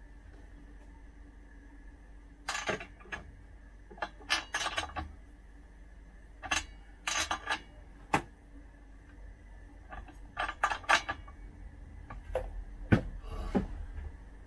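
Metal clinks and scrapes of a T-handle spark plug wrench on a chainsaw's cylinder head as a spark plug is changed. They come in short bursts of clicks several times, the loudest near the end.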